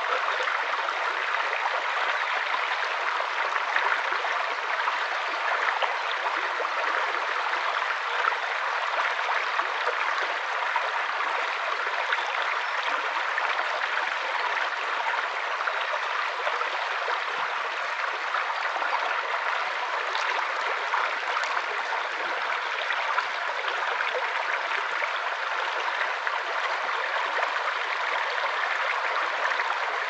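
Shallow woodland stream flowing over stones: a steady rush of running water, light in the low end.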